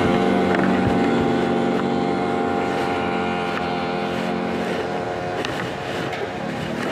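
A vehicle's engine running at a steady speed, with road noise, heard from inside the moving vehicle; it eases off slightly in the second half.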